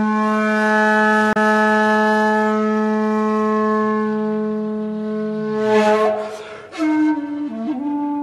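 Shakuhachi, the Japanese end-blown bamboo flute, holding one long low note with a breathy swell near its end. After a short break, a higher note starts and bends into pitch.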